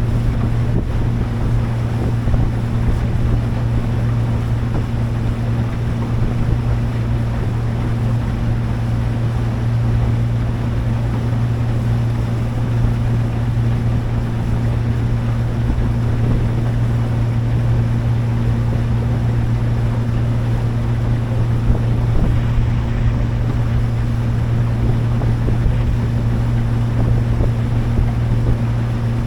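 Motorboat engine running steadily at an even pitch, a constant low hum, with wind buffeting the microphone and water rushing past the hull.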